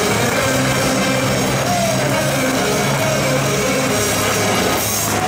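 Loud rock music over stadium loudspeakers, with held low notes, above a dense wash of crowd noise from fans cheering a goal.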